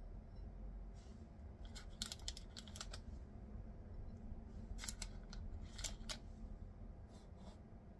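Knife slicing a chilled pumpkin roll, the blade clicking sharply against the cutting board in small clusters about two, five and six seconds in.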